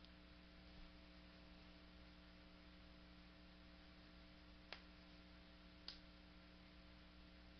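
Near silence: a steady low electrical hum, broken by two short mouse clicks a little over a second apart about two-thirds of the way in, as a window is dragged across the screen.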